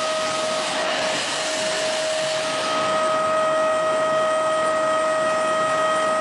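Automatic ice lolly production machine running: a steady rushing mechanical noise with a constant whining tone over it.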